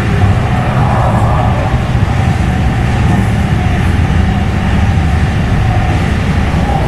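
Kinki Sharyo SLRV light-rail train running at speed along the track, heard inside the passenger cabin as a steady low rumble.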